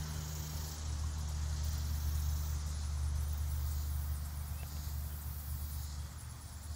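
Steady low hum of a motor running nearby, holding an even pitch throughout.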